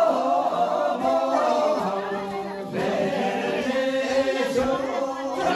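A group of voices singing or chanting together in unison, in long held notes that move to a new pitch about halfway through.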